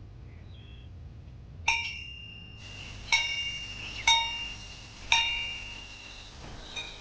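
A small metal bell rung four times at roughly one-second intervals, each clear ring dying away before the next.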